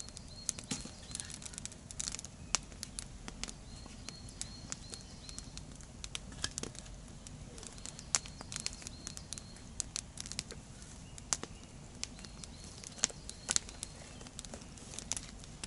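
Wood fire burning in a double log fire, crackling with irregular sharp pops and snaps.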